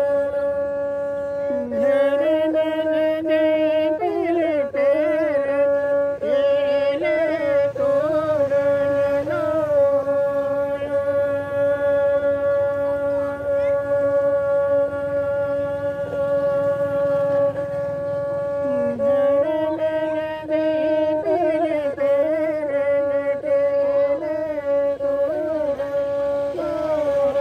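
A handmade bowed folk fiddle with a gourd body and bamboo bow playing: a steady drone note sounds throughout while a wavering, ornamented melody is bowed over it, with a long held stretch in the middle before the melody returns.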